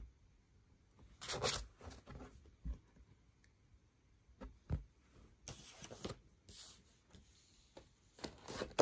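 Hands handling a vinyl LP record: irregular rustles and scrapes with a couple of soft knocks.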